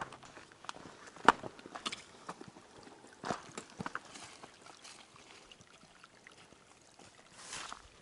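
Footsteps on a dirt and stony forest trail: irregular scuffs and knocks, the sharpest about a second in, with a brief rustle near the end.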